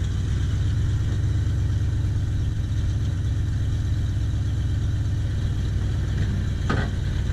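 A large engine running steadily with a low hum, with a brief sharp clank near the end.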